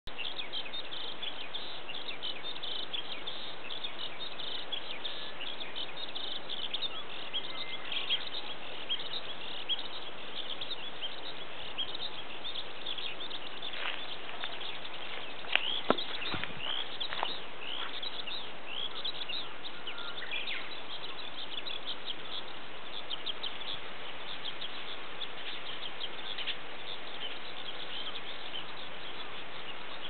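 Eurasian skylark singing in song flight: a continuous, rapid stream of high chirps and trills. A few sharp clicks about halfway through.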